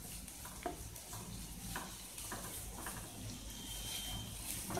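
Chopped onions sizzling in butter in a non-stick kadhai, being fried until just pink. A wooden spatula stirs them, with scattered light scrapes and taps against the pan about once a second.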